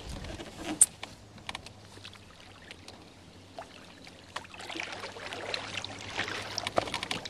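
Knocks and bumps on a Mad River Reflection canoe's hull as a paddler climbs out, the sharpest about a second in. From about halfway, water laps and trickles around the hull.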